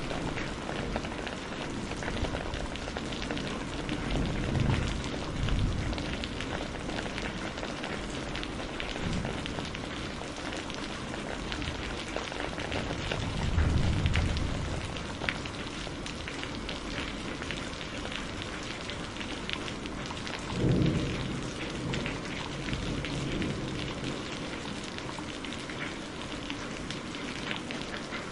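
Steady rain with a close, dense patter of drops, and low thunder rumbling three times: about five seconds in, in the middle, and about three-quarters of the way through.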